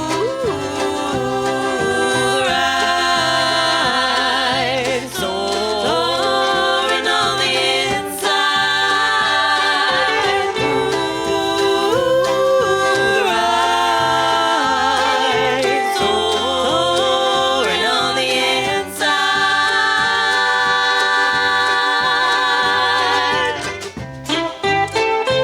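Live band playing a song: a wavering lead melody line, likely sung, over a steady stepping bass, with a brief dip near the end.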